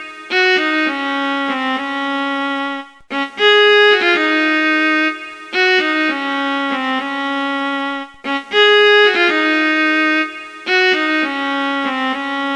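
Instrumental music: a short, bright melody played over and over, the phrase starting again about every five seconds.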